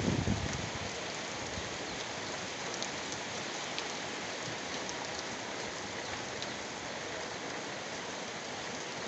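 Heavy rain falling: a steady hiss with scattered faint drop ticks.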